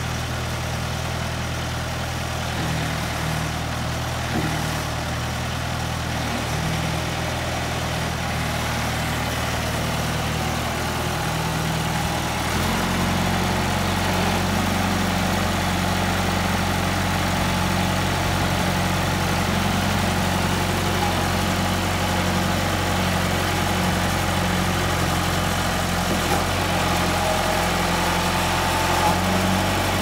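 John Deere 410 backhoe loader's engine running steadily at a low speed. About twelve seconds in, its note steps up a little higher and louder and holds there.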